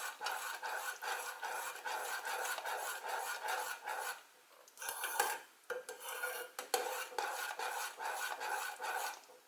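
A spoon stirring a melted butter, lard, honey and aloe mixture in a pot, scraping against the pot in a run of quick strokes to work in cocoa powder, with a short pause about four seconds in.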